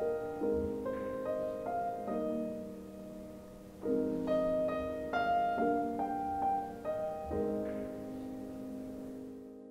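Piano music: a gently struck melody over held chords, fading out near the end.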